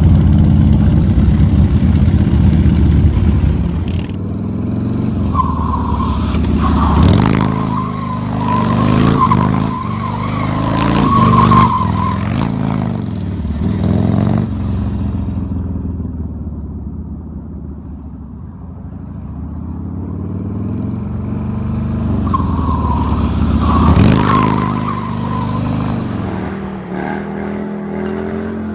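Harley-Davidson V-twin motorcycle engines revving hard across several cut-together stunt clips. Through the middle a bike circles in donuts: a tire squeals as it comes close, and the engine fades away and builds back to a loud peak.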